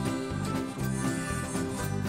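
Background music: a bluegrass-style tune on plucked strings.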